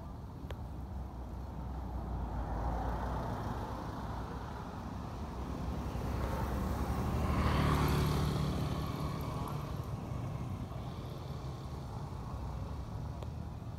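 Outdoor street noise with a motor vehicle passing close by, growing louder and then fading, loudest about eight seconds in.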